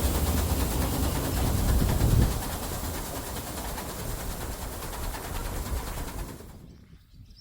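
Farm machine engine running, probably the swather, loud at first; after about two seconds it eases off and dies away to near quiet by about six and a half seconds in.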